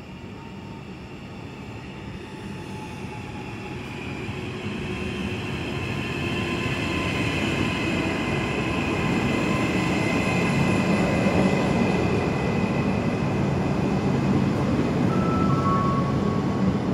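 Double-deck electric regional passenger train drawing in alongside the platform: wheel and rail noise grows steadily louder for about ten seconds as it nears and then holds, with a steady high whine through the middle and two short high squeals near the end.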